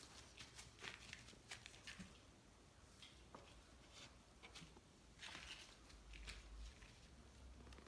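Faint sounds of sleeping Cane Corso puppies: scattered soft rustles and small clicks, with one breathy snuffle or snore a little past the middle.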